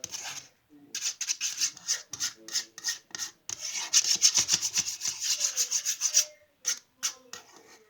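Pencil point stirring and scraping hand-sanitizer slime mixture in a small container, in fast strokes. There are two long runs of rapid scraping, then a few separate strokes near the end.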